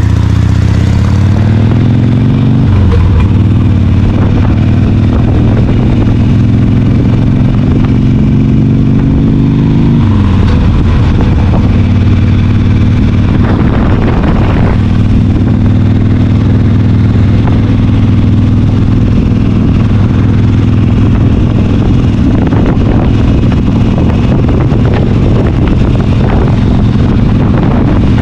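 Kawasaki Ninja 400's parallel-twin engine running under way, loud and steady over a low rush. Its note climbs and drops sharply about two and a half seconds in, climbs slowly again and drops sharply about ten seconds in, then holds steady.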